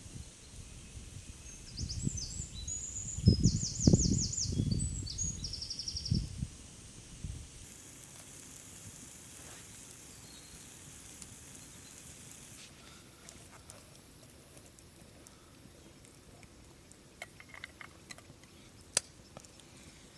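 Gusts of wind buffet the microphone in irregular low rumbles for the first several seconds, while a small bird sings a few quick, high trilling phrases. After that there is a faint steady outdoor hiss, with a few light ticks and a sharp click near the end.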